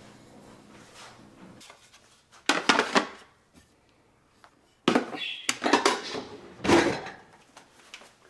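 Kitchen drawer being pulled open and pushed shut, with wooden plates and dishes knocking against each other as they are handled. The knocks come in two clusters, a short one and then a longer run.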